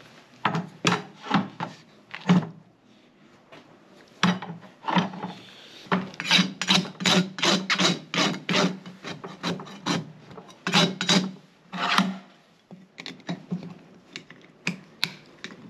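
Farrier's flat hoof rasp filing the wall of a freshly shod horse's hoof on a hoof stand. The rasping comes in quick runs of strokes, about two to three a second, with short pauses between runs.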